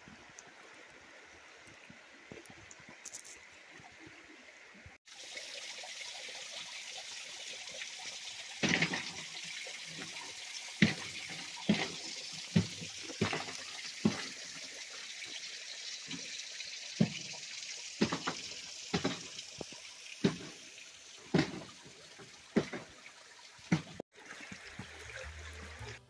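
Steady rush of a flowing river, with footsteps on snowy forest ground at walking pace, roughly one step a second, over most of the second half; the first few seconds are much quieter.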